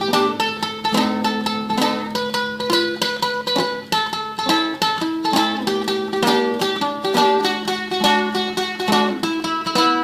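Solo classical guitar playing a tremolo passage: a melody note re-plucked in a rapid, even stream over slower plucked bass notes.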